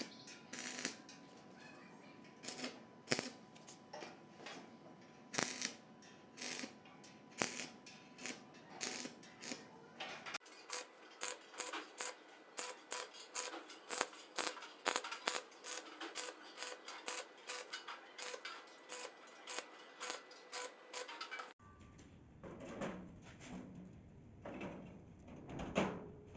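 A fast, irregular run of clicks and taps of small hard objects being handled, broken by two abrupt changes in background, at about a third of the way and near the end.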